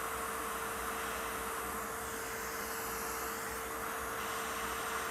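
Hot air rework station blowing: a steady airy hiss with a constant mid-pitched whine underneath.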